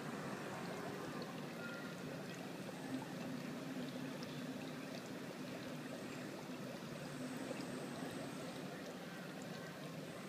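Steady trickle of running water, with a few faint scattered ticks.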